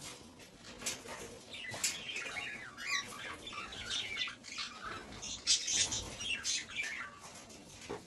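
Several cockatiels chirping and calling in quick succession, a dense run of short chirps.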